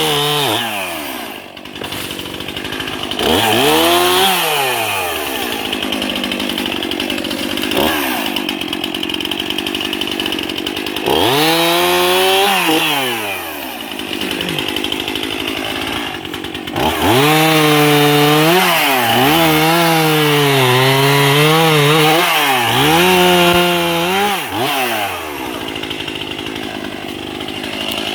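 Two-stroke chainsaw revving up and cutting through a tree trunk. The engine speed rises, then dips and wavers as the chain bites into the wood, and drops back between cuts. The longest cut runs from about 17 to 25 seconds.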